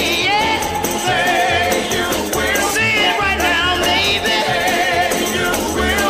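Goal song played after the horn: music with a singer's wavering vocal line over a steady bass beat and regular high percussion.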